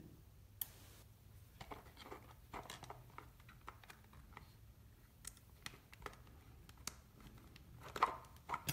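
Faint scattered clicks and light rustling from handling small plastic model parts: a 1/64-scale grain box being fitted onto a toy truck's frame. A louder few clicks come near the end.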